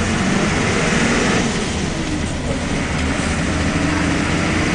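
SOR B 9.5 bus's diesel engine running steadily, its pitch drifting up and down a little.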